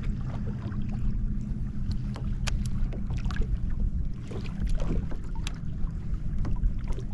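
Wind rumbling on the microphone over a kayak on the sea, with small irregular ticks and splashes of water lapping against the hull.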